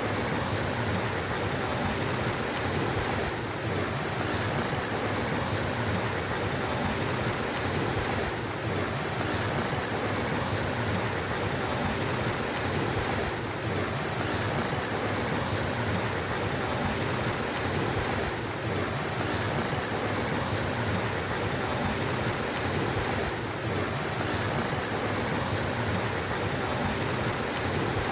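Flowing water, a steady, unbroken rush.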